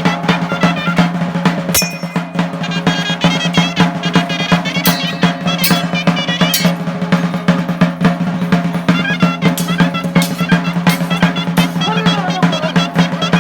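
Chirimía music: a shawm-like reed melody wavering and trilling over steady fast drumming with rolls.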